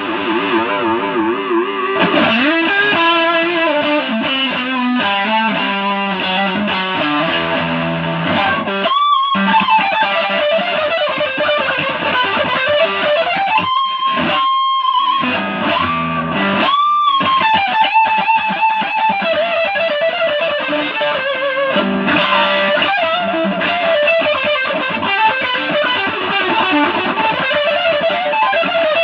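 Stratocaster electric guitar played as a melodic lead line, with wide vibrato and bent, held notes. Around nine, fourteen and seventeen seconds in, a single high note rings on its own.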